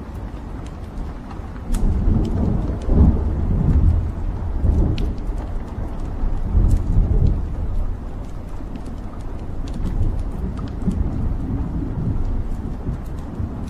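Wood logs burning in an open fireplace: a low rumble of flames that swells about two seconds in, with scattered sharp crackles and pops from the burning wood.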